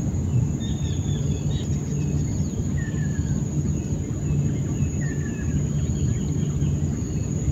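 Wild birds calling with short chirps and two falling whistles about two seconds apart, over a steady high-pitched insect drone and a constant low rumble.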